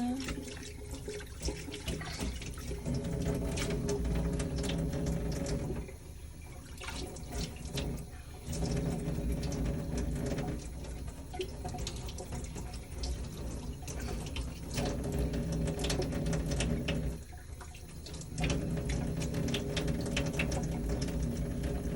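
Water running from a sink tap as a plate is washed under it, with splashing and small knocks; the flow dips and picks up again several times.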